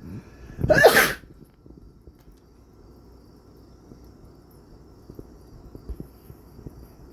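A cat sneezes once, a short sharp burst about a second in.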